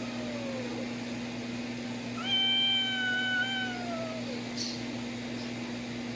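A cat meowing in long, drawn-out calls: one meow falls away and ends within the first second, and another starts about two seconds in, holds its pitch, then drops off. A steady low hum runs underneath.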